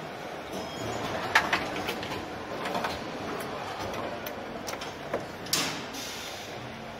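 Car assembly hall ambience: a steady hum with scattered sharp clicks and knocks as parts are fitted into a car body, the loudest about a second and a half in and a longer knock about five and a half seconds in.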